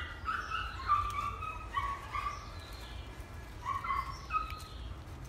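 An animal giving a series of short, high pitched calls, six or seven in a few seconds, over a steady low rumble.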